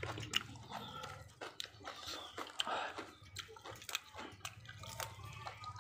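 Close-up chewing and mouth smacking while eating, with irregular sharp clicks and small crunches.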